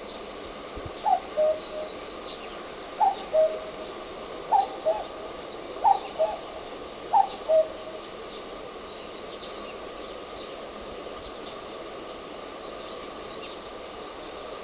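Common cuckoo calling its two-note cuck-oo, the second note lower, five times about every one and a half seconds, then falling silent. Faint high chirps from a smaller bird are heard throughout.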